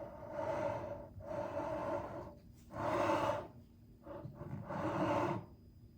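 A person's breathy puffs of air, about five in a row, each lasting up to about a second with short gaps between them.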